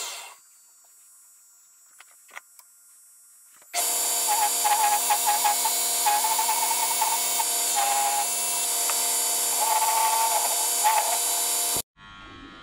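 1970s Coronet woodworking lathe's motor winding down with a falling whine, followed by a few seconds of quiet with a couple of light knocks. About four seconds in the lathe is running at full speed again with a steady whine of many tones, while a turning tool cuts the spinning ash, adding an uneven chatter. The sound cuts off abruptly near the end, leaving a quieter hum.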